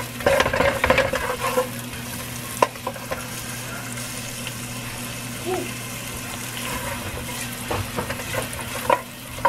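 Diced onions sizzling steadily in hot olive oil in a nonstick pot. A wooden spatula stirs them, scraping and tapping the pot, busiest in the first second and a half, with one sharp tap a little later.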